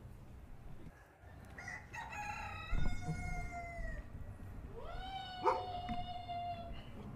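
Two long, pitched animal calls, each rising and then held: the first lasts about two seconds, the second about a second and a half. A sharp tap sounds during the second call.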